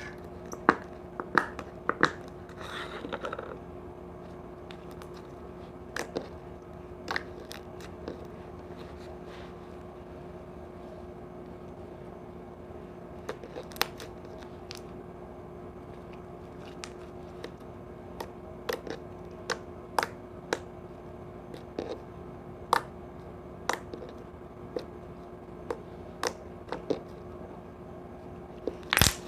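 Slime being handled and squeezed, giving scattered sharp clicks and pops, a cluster of them in the first few seconds, over a steady low hum.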